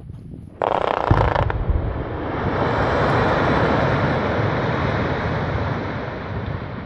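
Quarry blast in a basalt quarry: a sudden bang about half a second in, then a heavy thump, then a long rumble of shattered rock collapsing and sliding down the face that swells for a few seconds and slowly fades.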